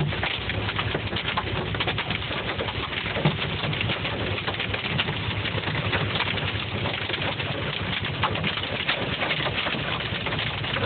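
Hail drumming on a car's roof and windshield, a dense clatter of countless small impacts over the steady drone of the car driving on the highway, heard from inside the cabin.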